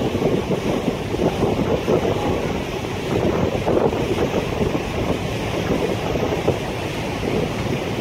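Steady wind buffeting the microphone on the open deck of a moving river tour boat, over the rush of water past the hull.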